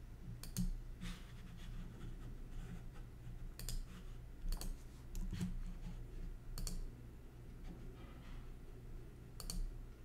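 About half a dozen separate clicks at a computer, spaced a second or more apart, with a low steady hum beneath.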